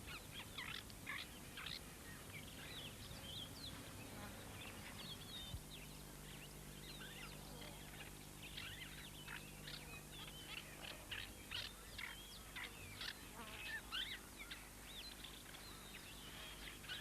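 Faint natural ambience of many birds chirping and twittering in short, overlapping calls, over a low steady hum.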